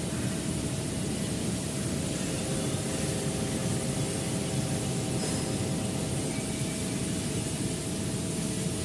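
CNC router running steadily while cutting a groove profile: a constant machine rumble with a faint steady hum above it.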